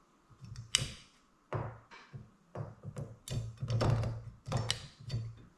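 Camp cookware being handled: a run of about eight irregular knocks and taps, spaced roughly half a second apart, with a denser cluster a little past the middle.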